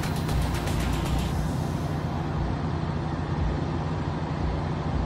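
Off-road 4x4's engine running steadily with a low hum. A fast, even high ticking stops about a second and a half in.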